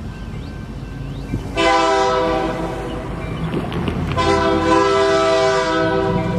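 Nathan K3-series three-chime locomotive air horn sounding two blasts, the second longer than the first, over the low rumble of the train.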